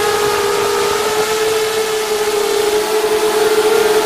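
FPV drone's electric motors and propellers whining steadily in flight: one strong buzzing tone with higher overtones, its pitch shifting slightly as the throttle changes.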